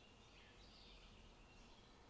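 Faint forest ambience: distant songbirds chirping and warbling over a low, steady background hiss.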